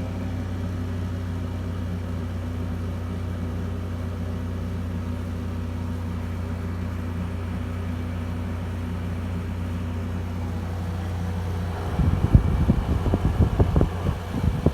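Frigidaire 5000 BTU window air conditioner running, its compressor and fan giving a steady low hum. About twelve seconds in, irregular low rumbling and thumps start up over the hum.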